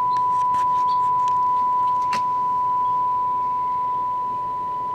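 Steady, pure test tone from the signal generator's modulation, heard through the tube radio during FM alignment, over faint hiss with a few light clicks.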